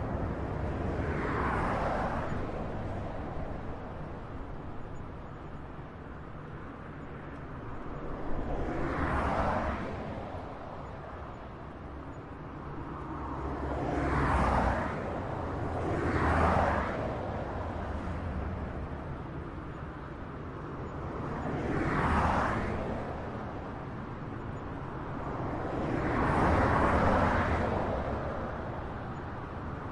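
Highway traffic: a steady low rumble with about six vehicles passing one after another, each a whoosh of tyre and engine noise that swells and fades over a second or two.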